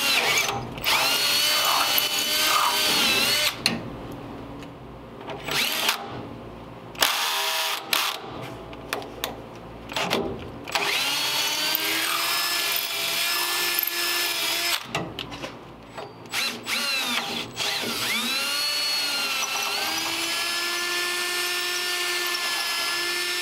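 Cordless drill turning a 19/64-inch high-speed steel bit through a rusted broken steel stud, enlarging the pilot hole to drill the stud out. It runs in spurts with short stops, then a longer steady run near the end, the motor's whine sagging in pitch as the bit bites and recovering as it frees.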